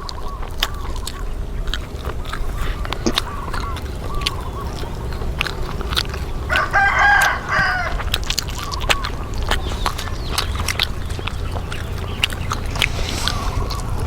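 Chickens clucking in the background, with one longer call about seven seconds in, over a run of sharp clicks from chewing crunchy fried chicken.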